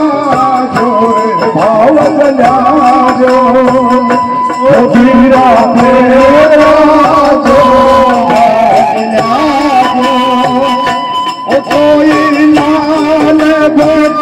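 Rajasthani chang dhamal folk song: a man sings through a loudspeaker system over a steady beat on large chang frame drums.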